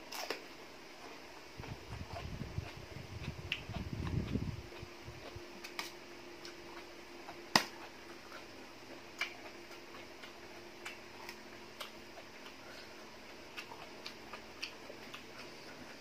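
Close-up chewing of crisp fresh vegetables during the first few seconds, then scattered sharp clicks of a fork against a metal tray, one louder click about halfway through.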